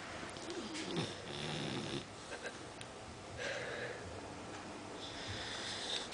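Pit bull snoring faintly in her sleep, three snoring breaths about two seconds apart.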